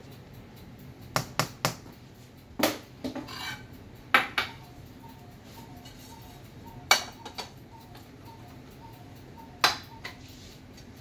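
Sharp, separate clinks and knocks of kitchenware: a ladle tapping against a glass bowl as rice is packed into it, then the glass bowl and a plate knocking together and on the counter. About seven knocks in all, three in quick succession about a second in, then single ones every few seconds.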